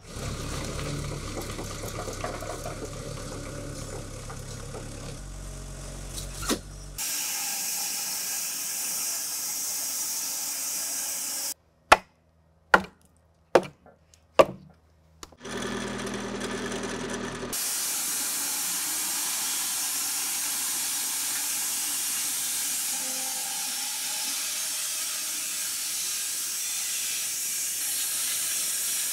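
A run of short, cut-together sounds: a low rumble for the first seven seconds, then a hiss, four sharp knocks after a brief quiet spell in the middle, and from about eighteen seconds on a steady hissing of a wide-cut electric bandsaw sawmill cutting through a large white oak log.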